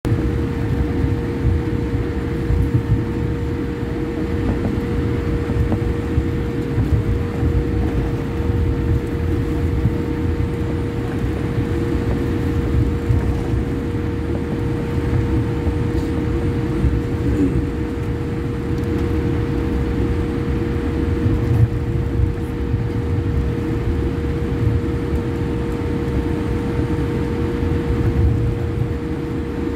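Jet airliner cabin noise during taxi after landing: a steady low rumble with a steady mid-pitched hum over it.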